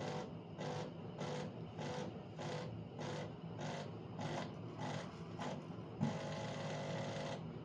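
De'Longhi La Specialista espresso machine's pump working through its descaling cycle, running in short even pulses about three a second. About six seconds in there is a click, then a steady run of about a second and a half that stops near the end.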